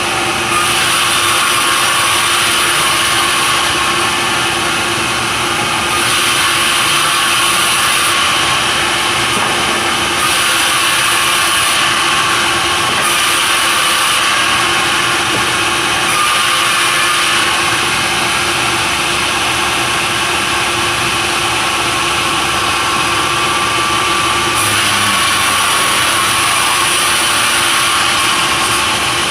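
Sawmill running steadily, an engine-driven saw working timber, with a steady hum underneath and a higher hiss that comes and goes every few seconds.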